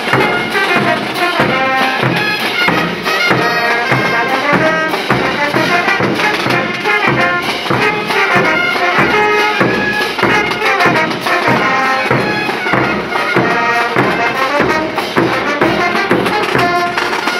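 Street band playing a morenada: a brass melody over snare drum and crashing cymbals keeping a steady marching beat.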